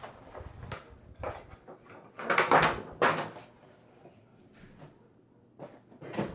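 A cardboard Funko Pop box being handled and opened: irregular scrapes, rustles and knocks, busiest about two and a half to three seconds in, with a sharp knock near the end.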